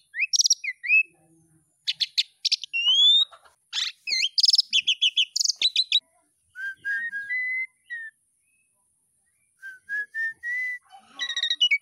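Asian pied starling (jalak suren) singing: a jumble of harsh chattering notes, clicks and rising whistles, then after about six seconds two runs of short whistled notes stepping up in pitch, with a pause between them.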